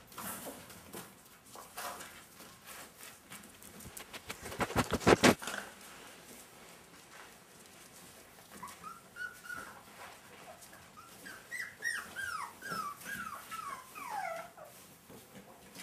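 Sheltie puppies whimpering: a run of short, high whines, each falling in pitch, in the second half. About four to five seconds in comes a brief burst of rapid clicking and scuffling, the loudest sound.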